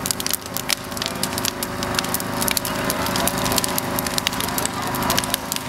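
Large open fire crackling and popping with dense, irregular snaps, over a steady low hum.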